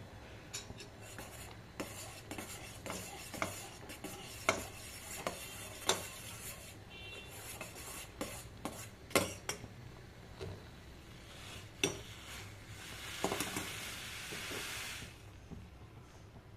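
A spoon stirring milk in a pan on the stove, clinking and scraping against the pan's sides in irregular strokes, then a hiss lasting about two seconds near the end.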